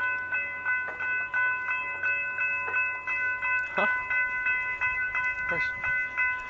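Railroad grade-crossing warning bell ringing rapidly, about three strikes a second, while the crossing gates are down.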